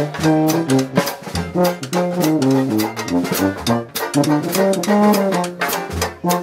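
Dixieland jazz band playing live: trombone and tuba over a drum kit with cymbals, on a steady beat.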